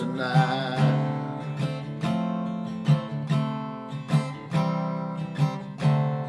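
Acoustic guitar strummed in a steady rhythm of chords. A man's sung note with a wavering pitch is held over the guitar and ends about a second in.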